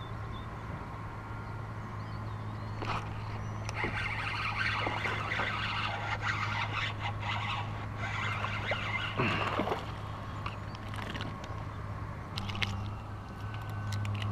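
A small largemouth bass is reeled in and landed on a kayak: splashing and scraping handling noise, over a steady low hum.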